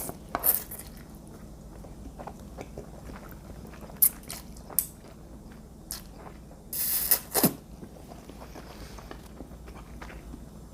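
Close-up eating sounds of seafood and pasta: chewing, with a few short sharp clicks and clatters. The loudest cluster comes about seven seconds in.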